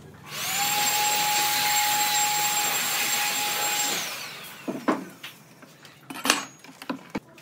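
Electric woodworking power tool starting up, running steadily with a high whine for about three and a half seconds, then winding down. A few sharp knocks follow.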